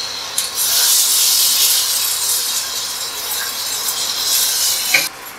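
Wet tomato, green chilli and cashew paste sizzling as it is poured into hot oil with fried onions in a frying pan. The sizzle starts about half a second in, is strongest early, eases off, and cuts off suddenly about five seconds in.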